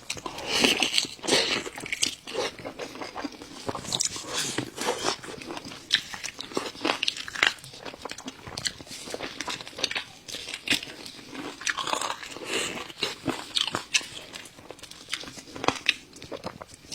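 A person biting into and chewing crispy fried food, with irregular crunches several times a second.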